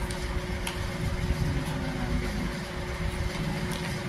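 Steady mechanical hum with a low rumble, like a motor or engine running, and a few faint light clicks.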